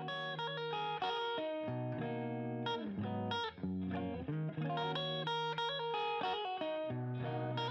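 Background music led by plucked guitar notes over a lower bass line, at an even level throughout.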